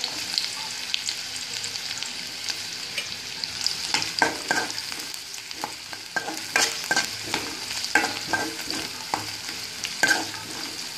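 Finely chopped onions sizzling in hot oil in a metal kadai, with a steel spoon scraping and clicking against the pan as they are stirred. The scraping comes more often from about four seconds in.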